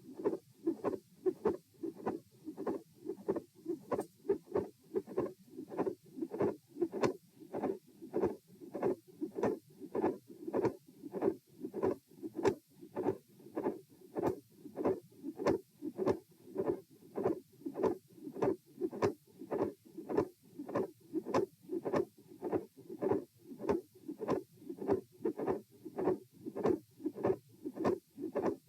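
Human heartbeat heard through a stethoscope: a steady, regular rhythm of heart sounds, recorded with the person standing. The uploader labels these beats as having a midsystolic murmur, a click and a split second heart sound.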